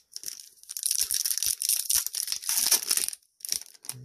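A trading-card booster pack wrapper being torn open and crinkled: a dense crackling with many sharp ticks, busiest in the middle.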